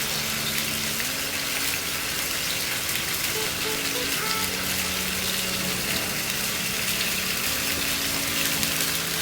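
Blended tomato sauce frying and sizzling steadily in a pot with garlic.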